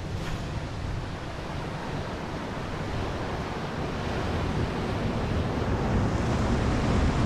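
Surf breaking and washing onto a rocky cobble shore, a steady rush that swells louder toward the end, with wind buffeting the microphone.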